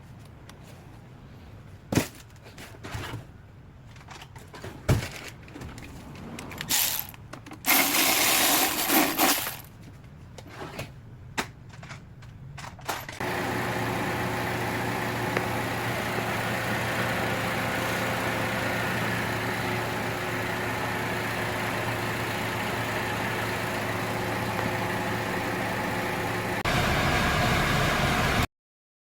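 Scattered clicks and knocks and a short burst of hissing noise, then about halfway through a Chevrolet Lacetti's engine starts and runs at a steady idle. It gets a little louder near the end before the sound cuts off.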